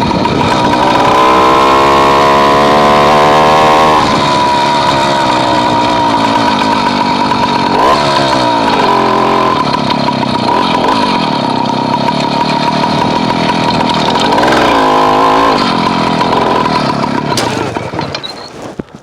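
Small engine of a motorized bicycle engine kit running and revving up and back down about three times, then dying away near the end.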